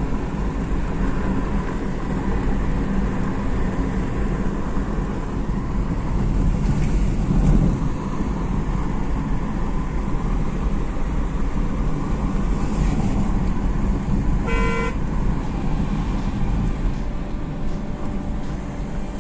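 Steady engine and road noise heard from inside a moving 2008 Hyundai Accent petrol car, with one short car-horn toot about three-quarters of the way through.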